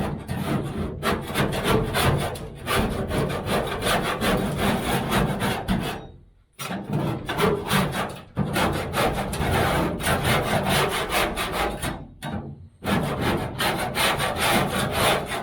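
Fast, repeated scraping strokes of a hand scraper working old insulation and backing off the van's sheet-metal interior. The strokes come in two brief pauses, about six seconds in and again about twelve seconds in.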